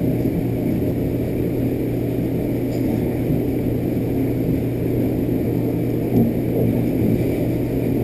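A steady low rumble with a hum underneath, unchanging throughout.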